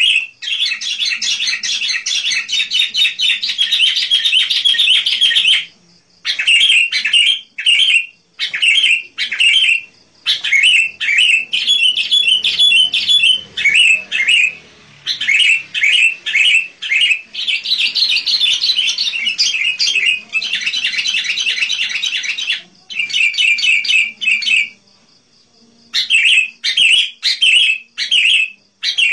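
Sooty-headed bulbul singing vigorously in long runs of rapid chirping notes, broken by short pauses and one longer pause a few seconds before the end.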